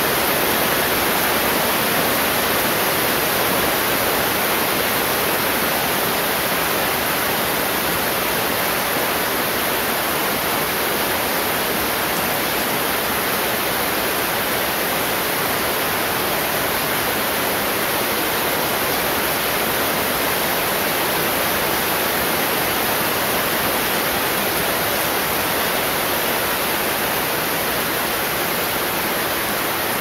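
Heavy rain falling steadily on a garden and shade netting: a dense, even hiss that holds constant throughout.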